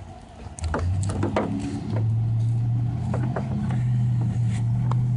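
A vehicle engine runs steadily with a low hum that rises slightly in pitch about two seconds in, while a few light clicks of handled plastic parts sound over it.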